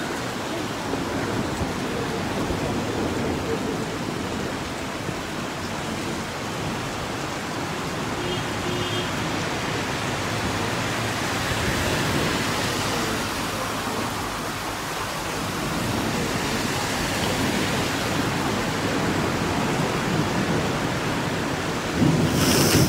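Heavy rain falling steadily in a continuous hiss during a thunderstorm. Near the end comes a sudden, loud, sharp crack: the start of a thunderclap.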